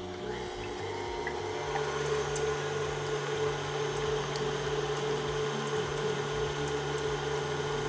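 Stand mixer with a whisk attachment running steadily at medium speed with an even hum, beating egg whites in the early stage where they are only just turning frothy.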